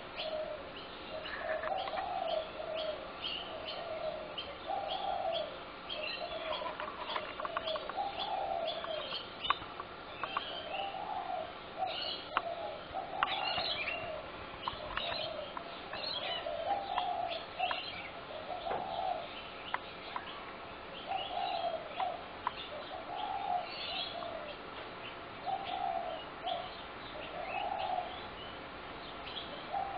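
Spotted doves cooing: a steady run of soft cooing phrases, one every second or two, with many short high chirps over them.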